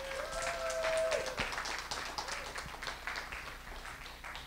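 Audience applauding a poet being welcomed to the stage, dense clapping that thins and fades toward the end. A single voice gives a brief held cheer about a second in.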